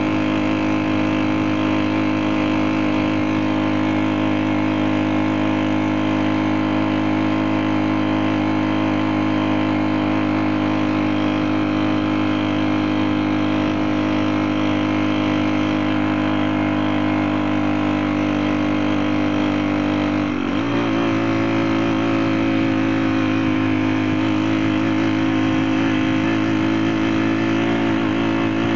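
Small 35 cc four-stroke engine running steadily, with a brief dip in pitch about twenty seconds in before it settles again.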